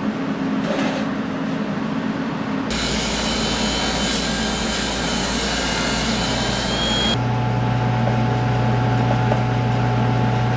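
A hand-held grinder cutting a piece of barbed wire: a hissing whine for about four seconds, its pitch rising slightly just before it stops. Steady shop machine noise comes before it, and a steady low hum follows it.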